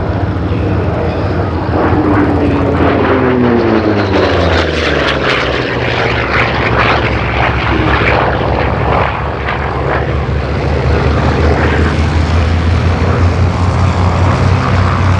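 Vought F4U Corsair's Pratt & Whitney R-2800 radial engine in a display pass. Its drone drops in pitch about two to five seconds in as the aircraft goes by, then runs on steadily.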